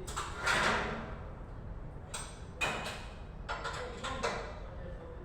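A handful of separate short knocks and rattles, about six, over a steady low hum.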